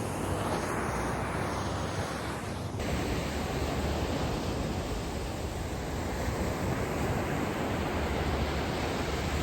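Steady rush of ocean surf mixed with wind on the microphone. The sound shifts abruptly about three seconds in, where one shot cuts to another.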